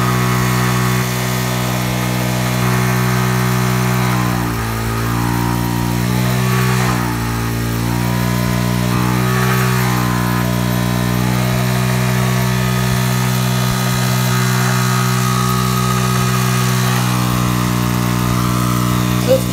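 Generator rig driven through a variable-frequency inverter, giving a steady electrical hum. Its pitch dips and comes back up a few times between about four and ten seconds in as the drive frequency is stepped around 63–65 Hz, then holds steady.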